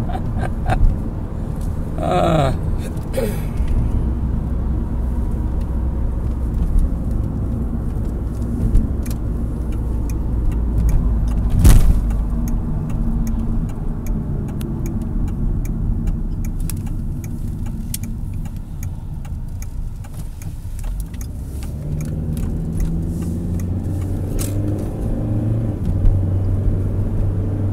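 Steady road and engine noise inside a moving car's cabin, with one sharp knock about twelve seconds in.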